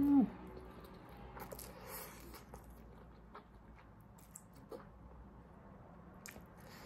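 Eating instant noodles: a short falling hum from the eater right at the start, then soft slurping and chewing with scattered wet mouth clicks.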